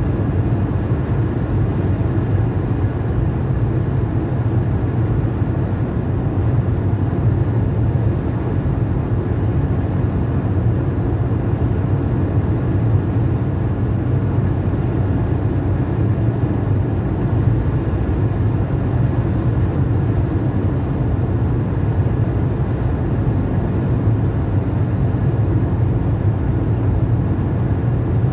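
Steady low rumble of road and tyre noise inside a car's cabin at motorway speed.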